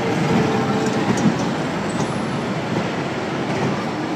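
Miniature ride-on train rolling along its track, a steady rumble and rattle of the cars and wheels, with a few sharp clacks about a second in.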